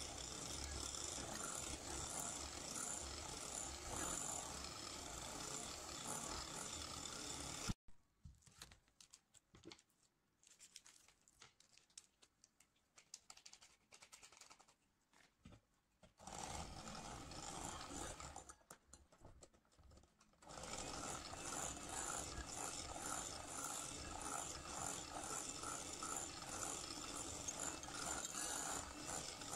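Electric hand mixer running with its beaters in a glass bowl of batter, stopping abruptly about eight seconds in. After a quiet stretch with faint clinks and scrapes, it runs briefly around sixteen seconds, then starts again about twenty seconds in and keeps running.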